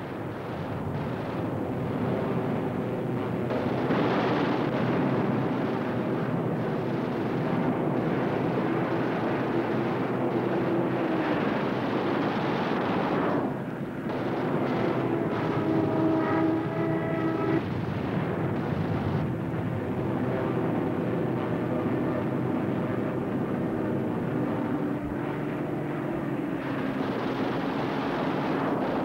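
Propeller aircraft engines droning steadily, with a brief dip in level around the middle.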